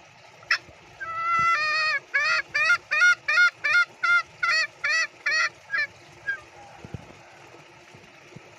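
Green junglefowl giving its 'ngekek' cackling call: a short note, then a rising run that swells into a held note, then about a dozen short cackles, roughly three a second, that stop about six seconds in. It is a call to its companions, which other green junglefowl usually answer.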